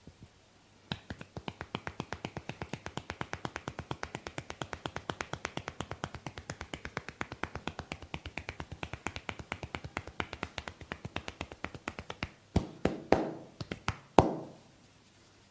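Rapid, even tapping on a forehead in a head massage, about eight taps a second for some eleven seconds. Near the end it gives way to three or four louder, sharper strikes.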